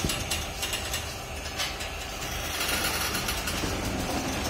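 Bullock-driven stone oil press (kal chekku) turning, its pestle grinding groundnuts in the stone mortar: a steady grinding with many small clicks.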